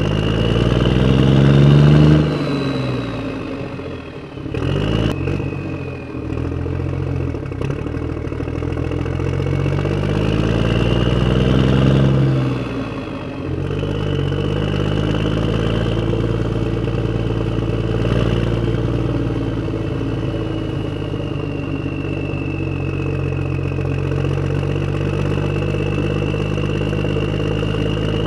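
Tractor engine sound effect: the engine revs up twice in the first half, with a couple of sharp clicks about five seconds in, then runs steadily at a fairly even pitch.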